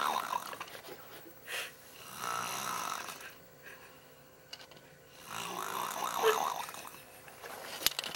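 Fake snoring made with loose, flapping lips: a few separate snores, the longest and loudest in the second half, followed by a sharp click near the end.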